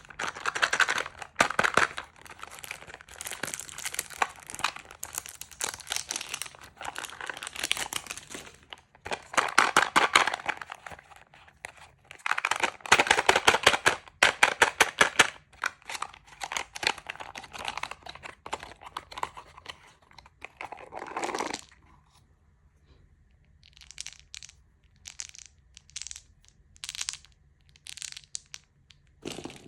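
Candy wrappers crinkling and being torn open by hand, in dense bursts of sharp crackles for most of the time, thinning to sparse, quieter rustles in the last several seconds.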